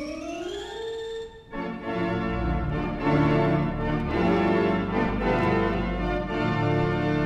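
A Robert Morton theatre pipe organ playing music: a rising glide up to a held note in the first second and a half, a brief break, then full, held chords over a heavy bass.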